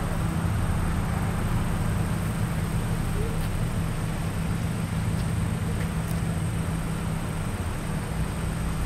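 Steady low rumble of a running vehicle, with a thin high whine held throughout and no crossing bell.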